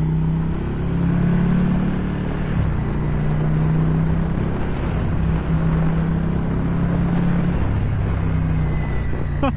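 Ducati Scrambler Cafe Racer's air-cooled 803 cc L-twin cruising through a Termignoni single-can exhaust with its up-map race tune, a steady low engine note with wind noise. The note shifts slightly about two and a half seconds in and again near the end.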